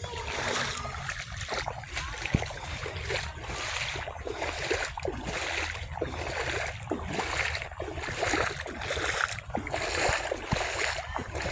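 Footsteps wading through shallow floodwater, a splash with each step at a steady walking pace, over a low rumble of wind on the microphone.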